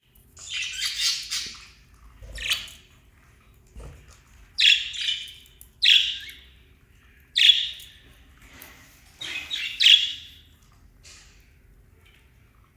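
Small pet parrots, such as lovebirds and budgerigars, giving harsh chirping and squawking calls in about seven short bursts with brief pauses between.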